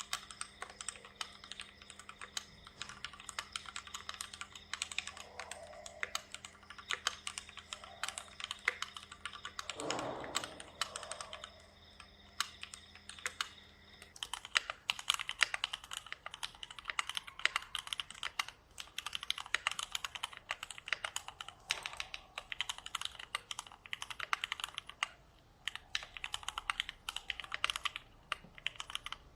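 Typing on a stock, unmodded Keychron Q1 mechanical keyboard: fast runs of key clacks. The case's resonance, the echo that the owner finds extremely unpleasant, is the sign that it needs modding.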